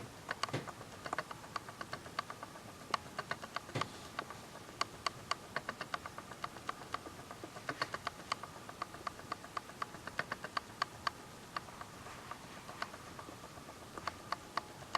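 Canon PowerShot S100 compact camera making rapid, irregular clicks, several a second, coming in uneven runs over a faint steady tone.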